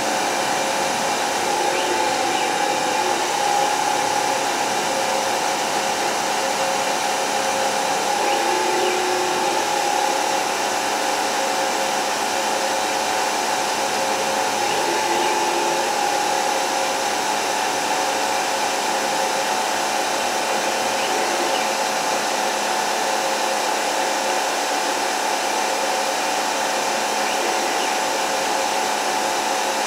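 Denford Orac CNC lathe running a roughing cycle: a steady spindle-motor whine over a hiss. Its pitch shifts about every six seconds as constant surface speed speeds the spindle up while the cutter moves in toward the centre line and slows it again at the outer diameter.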